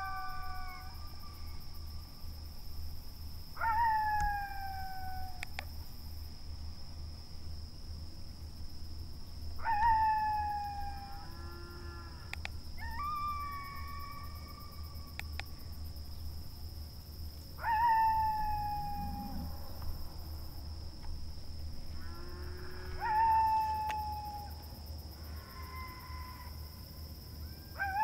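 Coyote howls, each a short rising yelp that slides into a long falling note, repeated every few seconds, six or seven times.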